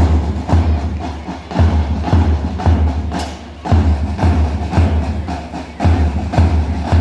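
Hip-hop backing music with a heavy, steady bass-drum beat about twice a second and sharp percussive clicks over it.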